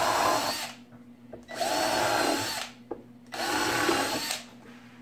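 Cordless drill pre-drilling pilot holes through a pine 1x4 runner into plywood, in three short runs of about a second each. The motor whine rises as each run spins up. The holes are drilled so that the screws won't crack the board near its end.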